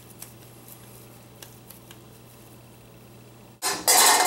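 Faint room noise with a steady low hum and a few small clicks. About three and a half seconds in comes a short, loud scraping clatter from the stainless steel mixing bowl being handled on the stone counter.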